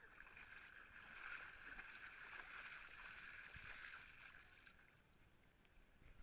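Near silence: a faint steady hiss that dies away after about four and a half seconds.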